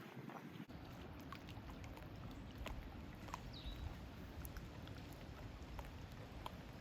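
Light footsteps on a dirt trail, heard as faint scattered clicks, under a low steady rumble of wind on the microphone that starts just under a second in.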